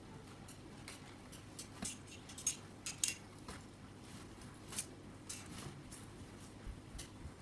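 Scattered light clinks and clicks of small hard objects, irregular and sharp, loudest about two and a half to three seconds in.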